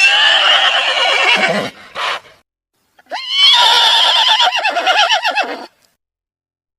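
Horse neighing: two long, wavering whinnies, the second starting about three seconds in.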